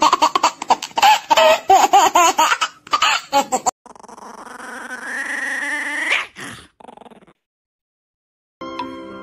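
A baby laughing in quick rhythmic bursts for about three and a half seconds, then a small dog whining in one long call that rises in pitch and ends in a short yip. After a brief silence, music starts near the end.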